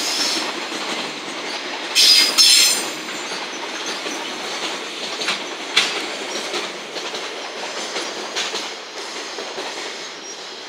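Container flatcars of a freight train rolling past on the rails: wheels clattering over the joints, with brief high-pitched wheel squeals, strongest about two seconds in. The noise fades as the end of the train moves away.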